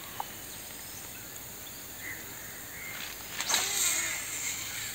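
A fishing cast with a spinning rod: a sudden swish about three and a half seconds in, then line running off the reel for under a second. Steady insect chirring runs underneath.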